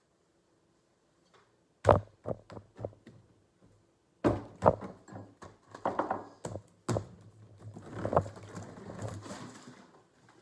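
Knocks and thuds of a small box and other objects being handled and set down on a wooden tabletop. The knocks come singly, starting about two seconds in, with a few seconds of rustling in the second half.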